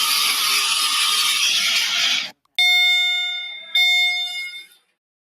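A loud, steady hiss of static-like noise cuts off suddenly. Two bell-like chime tones then ring about a second apart, each fading away before the sound ends abruptly.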